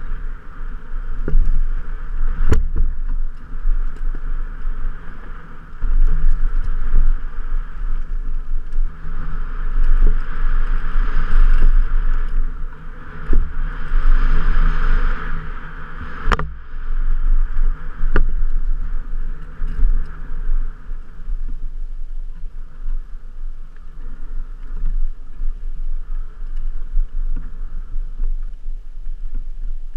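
A Specialized Enduro Comp 29 mountain bike ridden fast down a dirt trail, picked up by a helmet-mounted camera: a steady rumble and rattle from the tyres, frame and wind that swells and fades, with a few sharp clunks from hits and landings, one about two and a half seconds in and two more past the middle.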